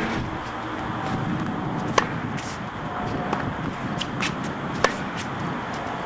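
Tennis rally on a hard court: three sharp pops of the ball off the rackets about two to three seconds apart, with fainter ticks of bounces and shoe scuffs between them.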